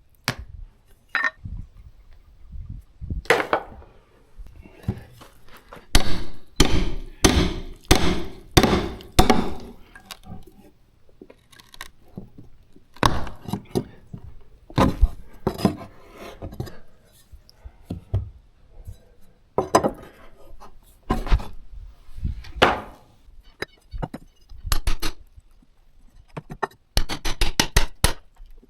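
Hand tools striking at work: irregular dull knocks mixed with metallic clinks, including a run of about two strikes a second and a quick burst of closely spaced strikes near the end.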